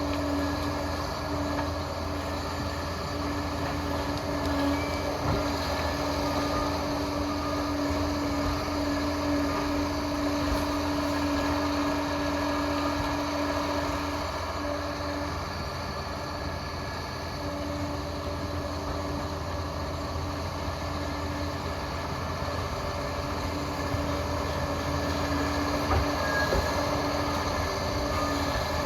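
Liebherr PR 746 crawler dozer's diesel engine running steadily under work, with a constant whine over the drone of the machine.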